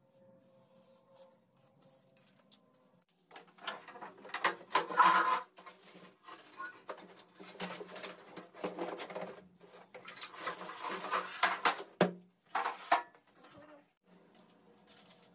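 Irregular rustling and clattering as a metal built-in hob and a tape measure are handled and shifted on a granite countertop, with a couple of sharp knocks near the end.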